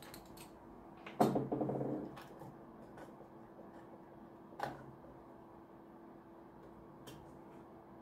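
Clicks, taps and plastic clatter from a screwdriver and hands working on a diesel heater's plastic casing while its motherboard is taken out. The loudest sound is a rattling scrape of under a second, about a second in, followed by a single knock a few seconds later.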